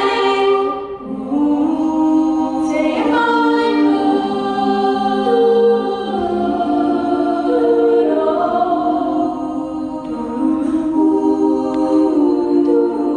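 Vocal ensemble singing a cappella in close harmony, several voices holding long chords that shift together, with no instruments heard.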